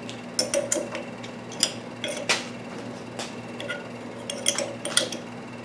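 Milling machine spindle running with a large twist drill chucked, giving a steady low hum, with about seven scattered sharp metallic clinks.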